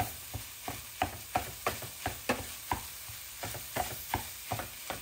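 Plastic ground-meat chopper jabbing down into plant-based ground beef in a frying skillet, breaking it up. It makes short dull knocks, about three a second, over a soft sizzle.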